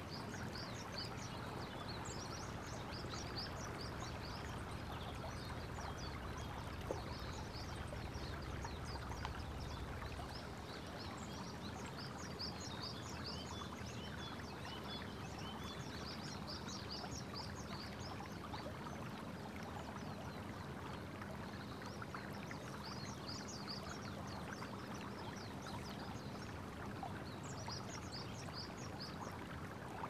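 Sai River babbling as shallow water flows over a gravel and stone riffle, a steady rushing murmur. Bursts of short, high chirps come and go over it, and a low rumble underneath fades out about ten seconds in.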